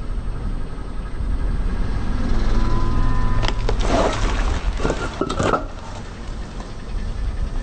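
Car tyre rolling over and crushing brittle objects over a low engine rumble, with a quick cluster of sharp cracks from about three and a half to five and a half seconds in.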